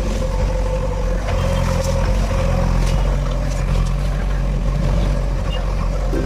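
JCB backhoe loader's diesel engine running steadily, with a few faint knocks.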